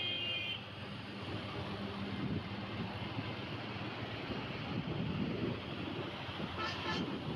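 Wind rushing over the microphone with road and traffic noise while riding a motorcycle on a highway. A vehicle horn ends just after the start, and another short horn toot sounds near the end.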